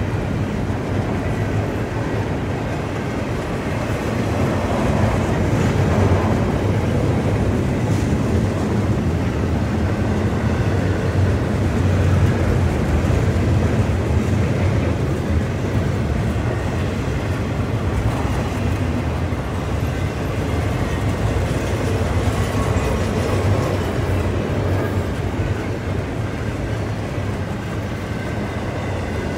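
Double-stack intermodal well cars of a freight train rolling past, a steady rumble and clatter of steel wheels on the rail.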